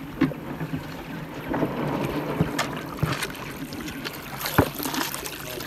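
River water splashing and rippling around a moving canoe, with a few sharp knocks over the lapping.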